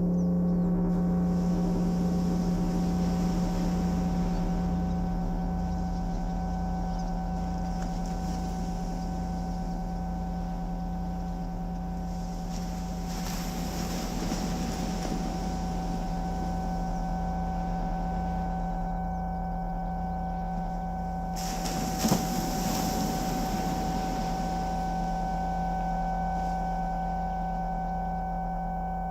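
Battery-powered synthesizer playing a sustained drone: a strong low tone with steady higher tones above it and a slow pulsing throb underneath. Two swells of hiss rise and fade through the middle and later part, the second opening with a short sharp knock.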